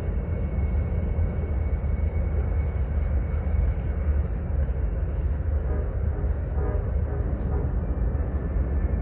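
Steady low rumble with a faint high steady tone above it, and a faint pitched sound about six seconds in.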